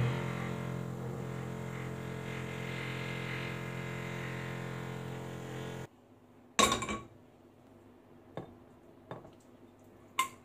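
A steady drone of several held pitches runs for about six seconds and cuts off abruptly. Then come kitchen sounds: a saucepan clattering onto a gas stove's grate, two light knocks, and a sharp clink near the end as a plastic tub of chicken broth is tipped over the pan.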